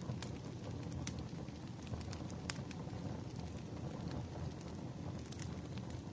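Wood fire crackling: a steady low rumble of burning logs with scattered sharp pops, the loudest about two and a half seconds in.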